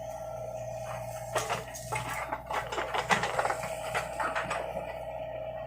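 Mini excavator running with a steady drone, with a cluster of metallic clanks and rattles from about a second in until near the end.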